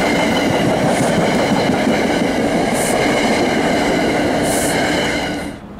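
New Jersey Transit passenger coaches passing close by at speed: a loud, steady rush of wheel and rail noise with a faint whine, and three brief high hisses. The sound drops off sharply near the end.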